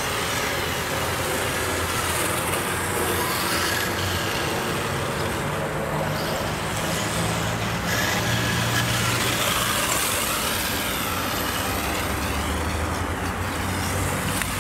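Radio-controlled car's brushless electric motor whining, its pitch rising and falling as it speeds up and slows, several times in the second half, over a steady noisy background.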